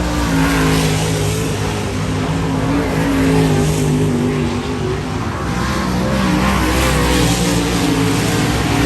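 Dirt modified race cars' V8 engines running on track, several engines heard together at a steady, slightly wavering pitch.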